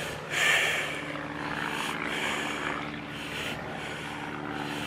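A steady low engine drone, holding an even pitch, under a rushing hiss that swells briefly about half a second in.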